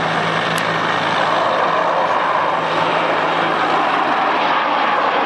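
Two Saab JAS 39 Gripen fighters' single Volvo RM12 turbofan jet engines, heard as a steady rushing jet noise that builds slightly as the pair flies closer overhead.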